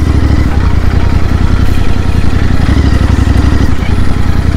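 The rider's own motorcycle engine running at low revs as the bike rolls slowly, a loud, steady low throb that neither rises nor falls.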